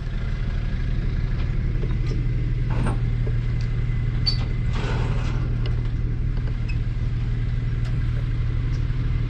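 Vehicle engine idling with a steady low hum, with a few faint light knocks and rustles around it.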